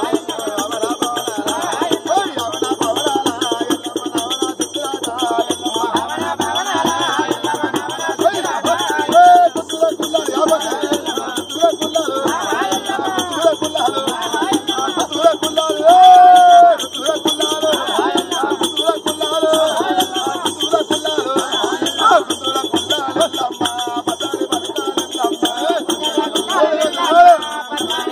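Men singing a devotional folk song to the goddess Yellamma, accompanied by a hand drum and a steady jingling, rattling percussion that keeps a fast even beat.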